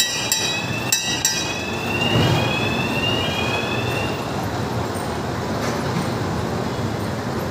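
A small mall ride train rolling past on its narrow-gauge track, with a steady rumble. There are a few sharp clicks in the first second and a half, and a high whine rises slowly in pitch over the first four seconds.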